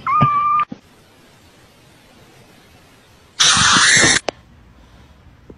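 A kitten's single short, high, steady mew. About three and a half seconds in comes a loud, harsh hissing burst lasting under a second, the loudest sound here.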